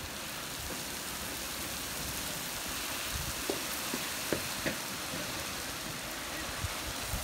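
Steady rain falling, an even hiss, with a few sharp taps around the middle.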